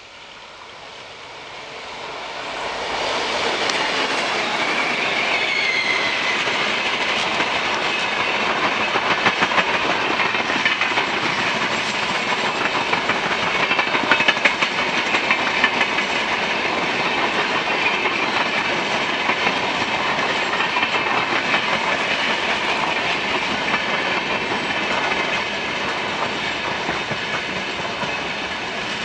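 WAP-7 electric locomotive and its passenger coaches passing close by. The rumble rises over the first three seconds as the train arrives, then the coaches run past with a steady wheel clatter.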